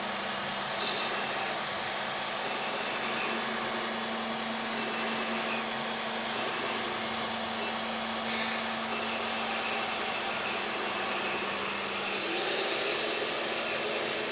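Radio-controlled model excavators working, with a steady mechanical hum throughout. A short high hiss comes about a second in, and the machinery grows a little louder, with a rising tone, near the end.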